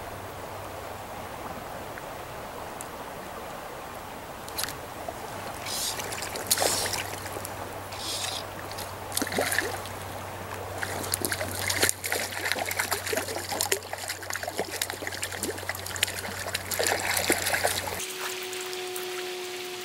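Trout stream water running, with irregular splashing and trickling from about four seconds in, over a low steady hum. About two seconds before the end the water sound drops away and music with held notes comes in.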